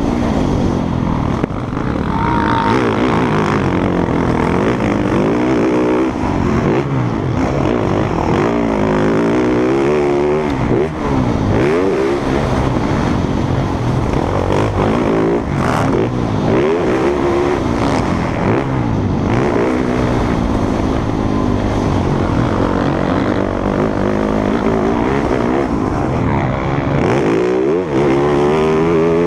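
Several motocross bikes racing, their engines revving up and down over and over as they accelerate and shift, with pitches rising and falling and overlapping one another.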